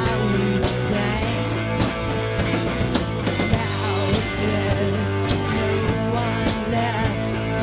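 Live rock band playing: electric guitars and a drum kit with regular cymbal hits, and a woman singing over them.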